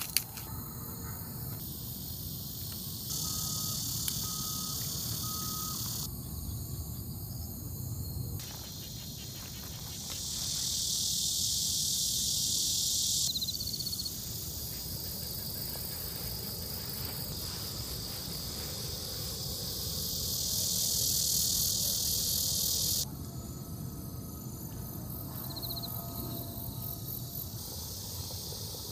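Insects chirring in the grass: a dense, high-pitched hiss that steps louder and quieter abruptly as the shots change, loudest around ten to thirteen seconds in and again around twenty to twenty-three seconds in. Three short, even peeps sound about four seconds in, over a faint low rumble.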